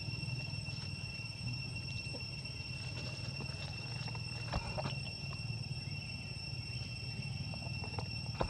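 Insects chirring in a steady high-pitched drone, over a low steady rumble, with a couple of faint clicks.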